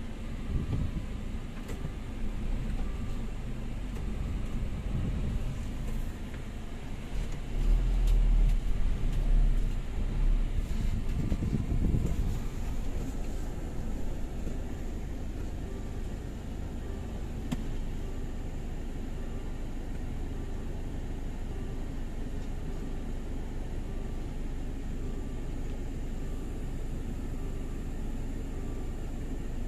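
Steady low rumble of a waiting car heard from inside its cabin, with the fan running, louder for a few seconds in the first half. A railway level-crossing warning bell rings in a regular pattern about once a second.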